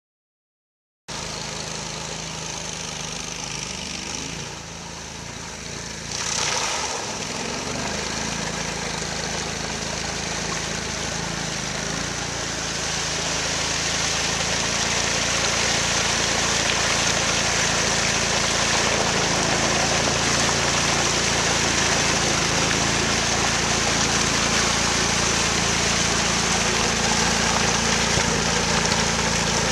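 Amphibious ATV engine running steadily with a hum and a broad rushing noise. The sound cuts in about a second in and grows louder about halfway through.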